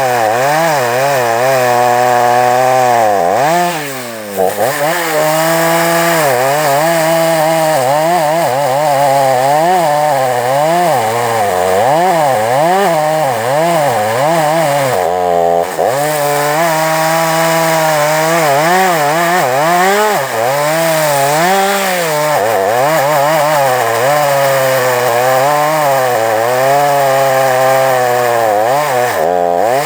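Two-stroke chainsaw running at high revs while cutting wood. Its engine note wavers up and down as the chain takes load, dropping deeply three times: near the start, about halfway and just before the end.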